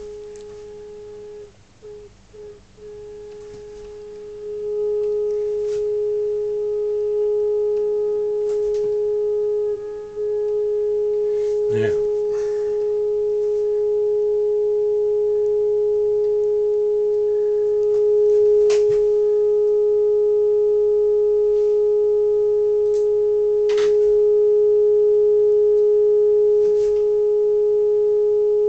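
Steady single beat-note tone from the Uniden 2020 transceiver's receiver: the signal generator's carrier being received on the 21 MHz band while the RF preamp is aligned. The tone grows louder in steps, about four seconds in and again about ten seconds in, as the tuning is brought toward peak. A few faint clicks are also heard.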